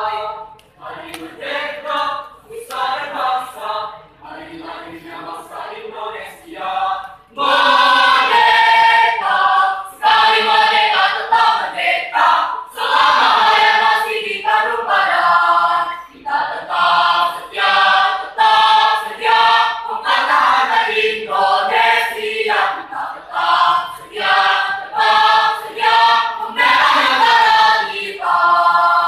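Mixed choir of women's and men's voices singing unaccompanied in phrased lines, softer at first and then much louder from about seven seconds in.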